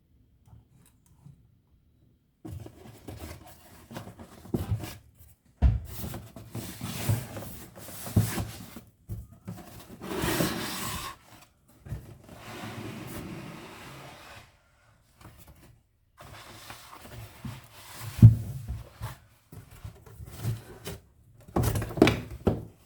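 Packaging being handled while a Cricut Explore 3 cutting machine is unboxed: irregular rubbing and scraping, with knocks here and there and two heavier thumps, one about six seconds in and one near eighteen seconds.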